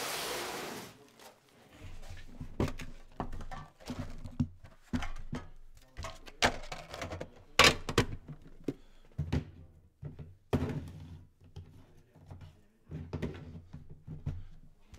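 A metal Upper Deck hockey-card tin and its foil-wrapped packs being handled: a brief scraping rush at the start, then a string of irregular light knocks and taps as the tin is opened and the packs are set down, the loudest a little past halfway.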